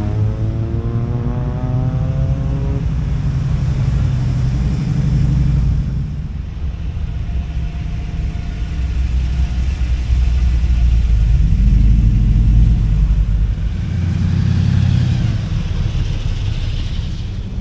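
Classic cars driving past one after another with a deep, continuous engine rumble. An engine note rises as a car accelerates in the first few seconds, and the rumble is loudest around the middle.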